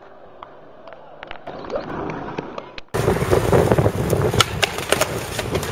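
Skateboard wheels rolling over stone paving with a few light clicks. About three seconds in, a cut brings a much louder rolling noise of a skateboard on wet street, with frequent sharp clacks of the board.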